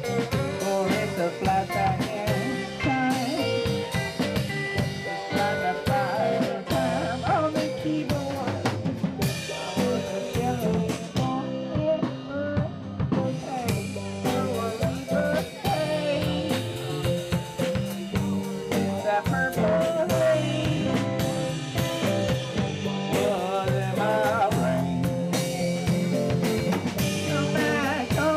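Live rock band playing: electric guitar over a drum kit with a steady beat. The cymbals drop out briefly about twelve seconds in.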